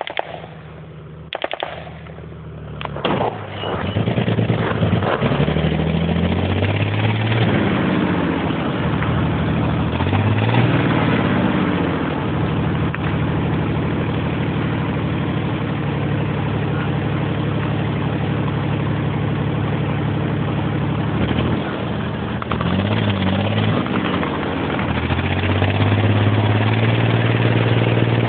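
Heavy military vehicle's engine running hard as it drives off, its pitch climbing and dropping again several times with gear changes. A few sharp knocks come before it, in the first three seconds.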